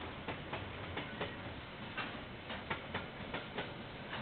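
Train wheels clicking over rail joints: sharp clicks, often in close pairs, two or three a second, over a steady hiss.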